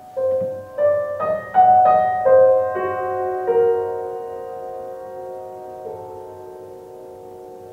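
Solo piano music played back over hi-fi loudspeakers in a live, bare room: a quick run of notes in the first three seconds or so, then the chords ring on and slowly fade, with one more note near six seconds.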